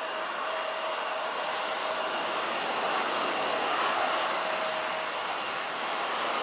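Jet engines of an Airbus A320-family airliner on final approach and flare, a steady rushing roar with a faint whine running through it.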